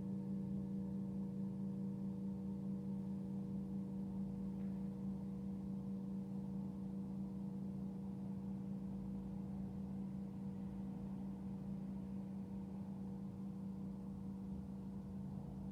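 Tibetan singing bowl ringing on in a sustained low tone with several higher overtones, slowly fading.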